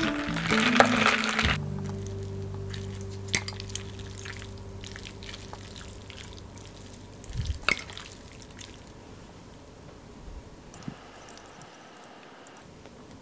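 Sparkling water poured into a glass of ice and passion fruit syrup, fizzing, stopping about a second and a half in. A few sharp clinks of metal utensils on glass and china follow.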